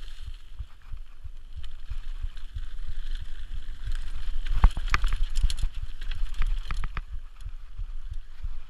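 Mountain bike descending a dirt singletrack at speed: wind buffeting the microphone, tyres running over the dirt, and the bike rattling and knocking over bumps, with a cluster of sharp knocks about four and a half seconds in.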